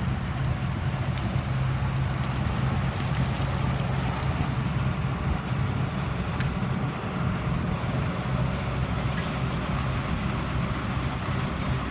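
Diesel engine of harvest machinery running steadily at an even speed, a low drone with a few faint clicks.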